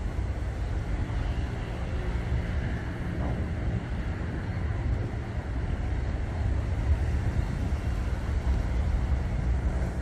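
Steady low outdoor rumble, heaviest in the deep bass and unevenly fluttering, with a faint hiss above it and no clear event standing out.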